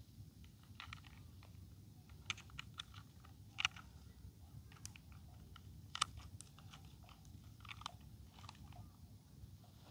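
Faint, irregular clicks and light taps of a small plastic toy cement mixer truck being turned over in the hand, the clearest about three and a half and six seconds in.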